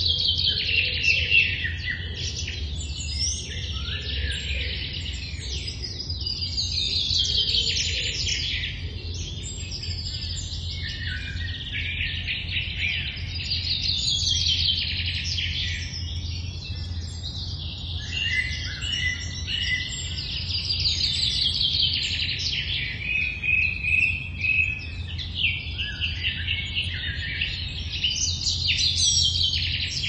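Several songbirds singing in the early morning. A song of quick trills that fall in pitch comes back every few seconds among other bird calls, over a steady low rumble.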